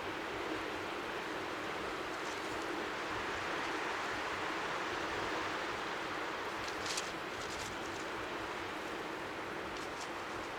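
Strong sea wind rushing over the microphone as a steady hiss, with faint waves lapping at the shore beneath it. A few faint ticks come about seven and ten seconds in.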